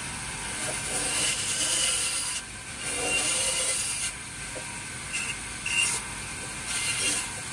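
Bandsaw running, its blade cutting through small blocks of hardwood in several short cuts, each cut a hiss that starts and stops over the steady hum of the saw.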